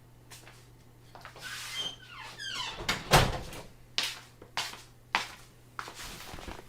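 Handling sounds in a small room: a squeak about two seconds in, a thump a moment later, then four sharp clicks or knocks about half a second apart.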